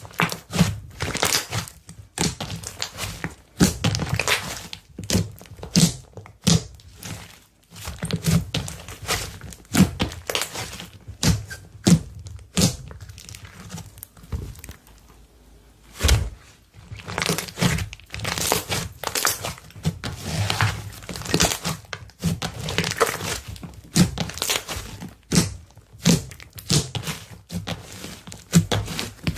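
Slime being squeezed and pressed by hand, giving irregular clusters of crackles, pops and soft thunks, with a couple of short quieter pauses.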